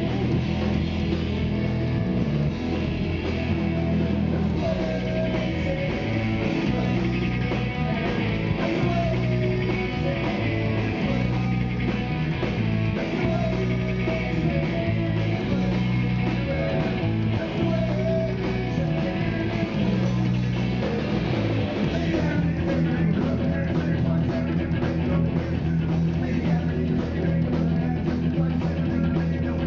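Rock band playing live on amplified electric guitars, bass and drums. The bass and drum pattern changes about two-thirds of the way through.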